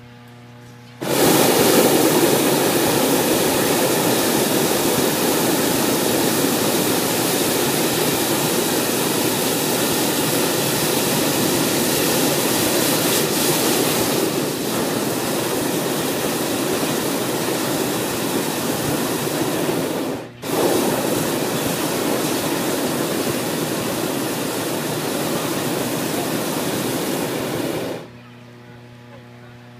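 Hot air balloon's propane burner firing in one long, loud blast heating the air in the envelope. It cuts out for a moment about twenty seconds in, then fires again until it stops near the end.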